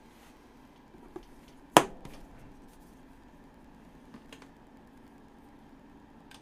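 A single sharp click or tap about two seconds in, much louder than anything else, with a few fainter ticks before and after it over a faint steady hum.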